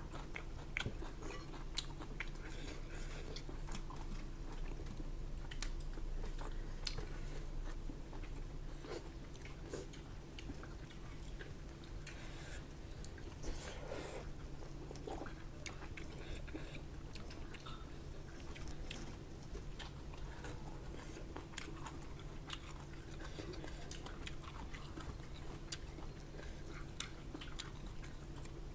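Close-miked chewing and biting of a hand-eaten meal of rice, pork and raw greens, with wet mouth sounds and occasional crunches. A steady low hum runs underneath.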